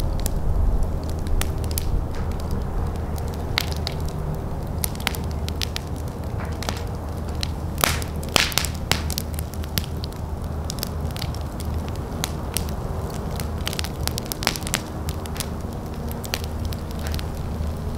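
Fire burning, with frequent sharp crackles and pops over a steady low rumble; a cluster of louder pops comes about eight seconds in.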